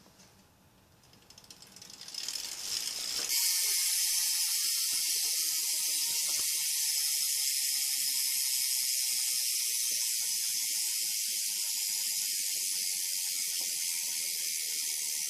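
A steady loud hiss that builds over the first few seconds and then holds even, with a few faint scattered ticks beneath it.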